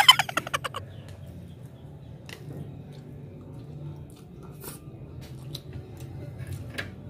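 A person eating mi goreng fried noodles: quiet chewing and slurping with soft wet mouth sounds and a few faint clicks scattered through.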